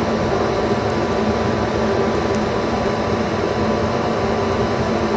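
Steady mechanical hum with several constant pitches over a level hiss, unchanging throughout.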